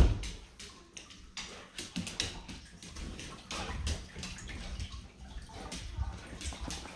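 A dog searching among cardboard boxes on a hardwood floor: irregular light clicks and scuffs from its paws and the boxes as it noses around.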